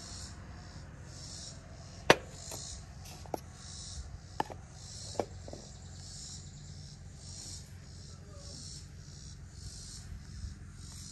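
Insects chirping in a steady pulsing rhythm, about one and a half pulses a second. A sharp knock about two seconds in, and a few lighter taps over the next three seconds, come from objects being handled on a glass-topped table.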